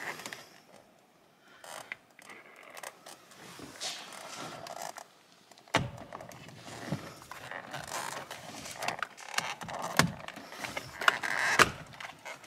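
A screwdriver and hands prying at the release holes behind a Camaro's steering wheel to pop the airbag's spring clips: scattered plastic clicks, scrapes and knocks, with a sharp click about six seconds in and a few more near the end.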